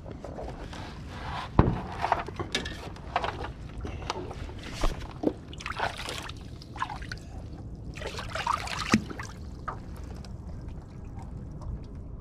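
Water splashing and sloshing against a kayak's side as a hand reaches down into the water, in irregular splashes. The sharpest splash comes about one and a half seconds in, and it settles down about ten seconds in.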